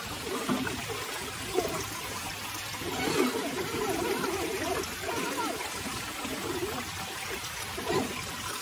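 Small forest creek trickling and gurgling over rocks, with a brief knock about a second and a half in.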